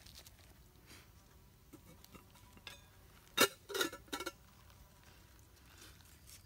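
Lidded stainless steel camping pot being set down on the ground: one sharp clink a little past halfway, then two short metallic rattles of the pot and lid. Faint small ticks and clicks from the campfire around it.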